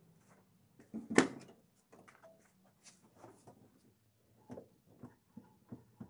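A Maruti Omni van's door clunks loudly once about a second in as it is opened. Later comes a run of light knocks, about two a second, as the steering wheel is rocked by hand to show its excess play.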